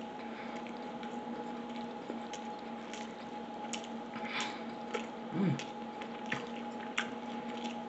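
A person chewing a mouthful of fried chicken sandwich with the mouth closed: wet smacking and clicking mouth sounds every half second or so, with a short hummed "mm" about five and a half seconds in. A steady low hum runs underneath.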